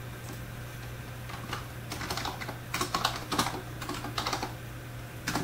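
Computer keyboard typing: a quick run of keystrokes for about three seconds, starting a little over a second in, then one more click near the end.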